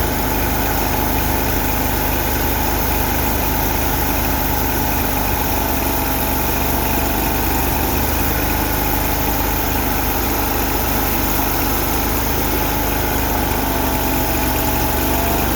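Mini skid steer's engine idling steadily.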